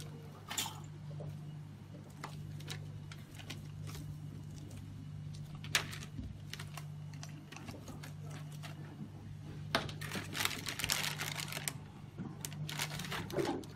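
Irregular light clicks and rattles of reagent bottle caps and pump tubing being handled, with one sharper click about six seconds in and quick runs of clicking near the end, over a steady low hum.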